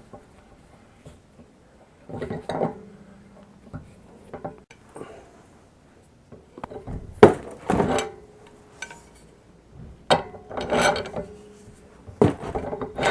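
Pipe wrench working a steam radiator valve tight: about four spells of metal clanking and scraping, some leaving a short metallic ring.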